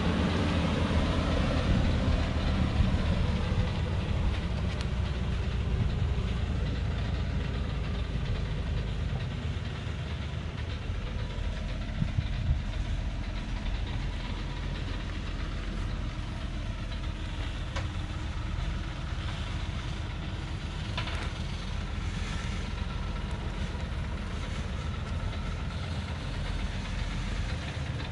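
Diesel engine of a heavily loaded timber truck running low and steady as it creeps down a steep dirt track, slightly louder in the first few seconds, with a few faint knocks.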